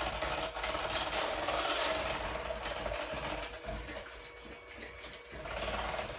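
Electric hand mixer running steadily, its beaters whirring through a thin pumpkin and evaporated-milk batter in a stainless steel bowl, a little quieter in the second half.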